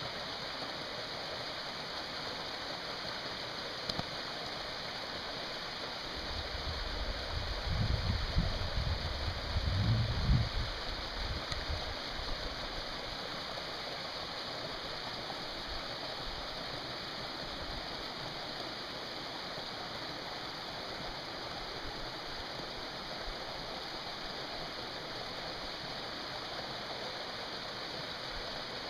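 A desert canyon creek running over rocks: a steady, even rushing of water. A low rumble swells in from about six seconds in and dies away by about eleven seconds.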